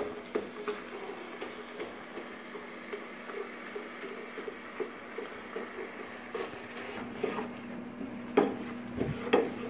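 Wooden spoon stirring ground meat in a frying pan, with quick irregular scrapes and taps against the pan, and two louder knocks near the end.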